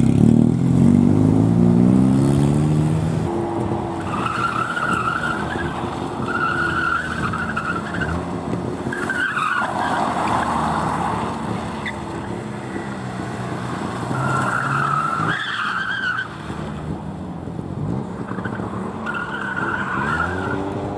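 A car engine revving up as the car pulls away, then a Ford Capri's tyres squealing in about five short bursts as it is driven hard through tight turns, its engine running beneath.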